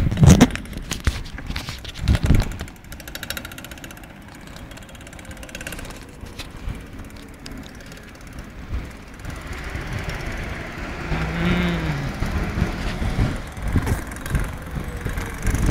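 A road vehicle drives past, its engine and tyre noise swelling and then fading over several seconds about two-thirds of the way in. A few thumps come in the first two seconds.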